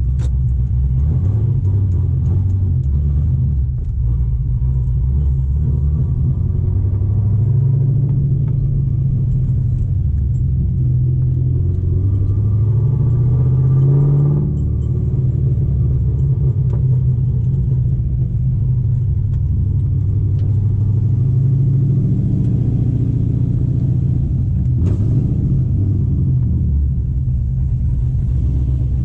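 Corvette V8 engine accelerating under load. Its pitch climbs for several seconds, drops sharply at a gear change about halfway through, then climbs again.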